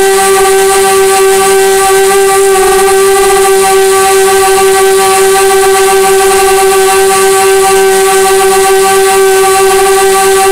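Lumenier QAV250 quadcopter's brushless 2204 motors and propellers whining at a steady, high, even pitch, heard through its onboard camera while it cruises at constant throttle.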